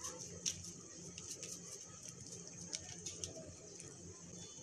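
Light ticks and rustles of a Maggi masala sachet being shaken over a pot of noodle soup, over a faint steady hiss, with one sharper tick about half a second in.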